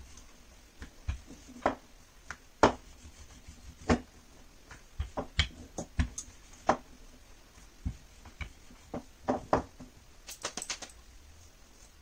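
Wooden rolling pin rolling out pastry dough on a stone worktop: irregular light knocks and clicks as the pin and hands meet the counter, with a quick run of clicks near the end.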